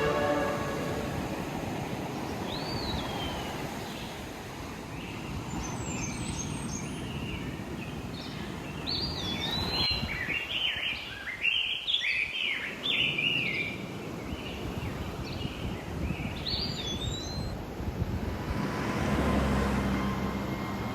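Birds chirping and calling over and over, busiest in the middle, over the steady low rush of ocean surf. Near the end a low engine hum swells in.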